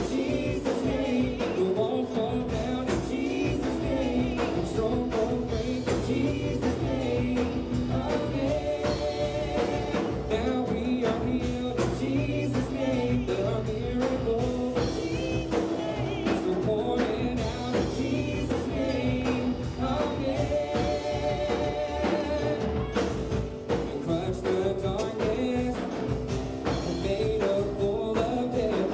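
Live contemporary worship band: singers over electric bass, keyboard and drum kit, with a steady drum beat.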